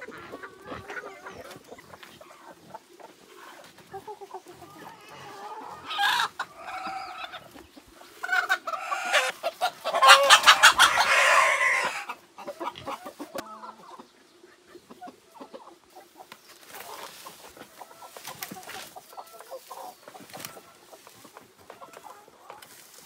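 Domestic chickens clucking, with loud calls in the middle. The longest and loudest, running about three seconds from around nine seconds in, is a rooster crowing.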